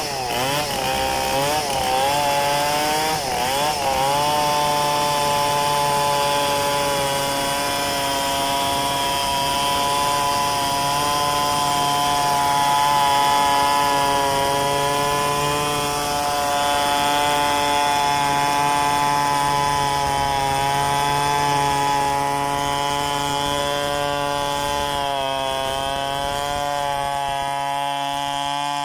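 Stihl two-stroke chainsaw running at high throttle while cutting gmelina wood. Its engine pitch wavers up and down for the first few seconds, then holds fairly steady through the cut with small dips.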